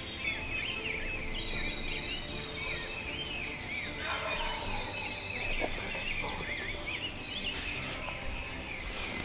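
A wild turkey gobbles about four seconds in, over a dense dawn chorus of chirping songbirds.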